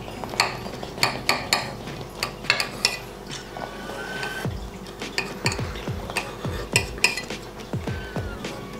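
Knife and fork clinking and scraping on a plate, with many irregular sharp clicks.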